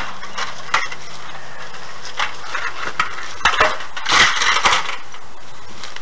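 A stepladder knocking and clattering as it is handled, with a few sharp knocks and a longer, louder rattling clatter about four seconds in. A steady hiss lies underneath throughout.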